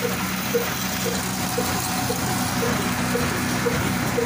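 Diamond Daska slow-speed 'kala' diesel engine running at steady speed, a regular beat about twice a second over a steady low hum.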